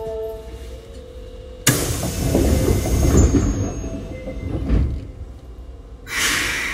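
Sliding passenger doors of an Osaka Metro 22 series subway train working at a station stop: a sudden loud rush starts about a second and a half in and lasts about three seconds, and a second hiss comes near the end.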